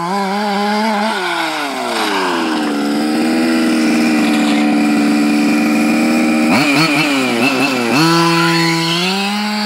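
Two-stroke petrol engine of a Losi 5ive-T 1:5 scale RC truck running, its pitch falling and settling into a steady high drone. About six and a half seconds in it is blipped several times in quick succession, then settles again.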